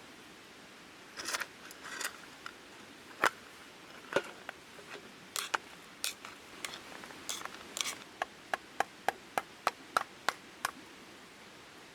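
Chopping strokes on wood: a few irregular sharp knocks, then a steady run of about three quick chops a second near the end.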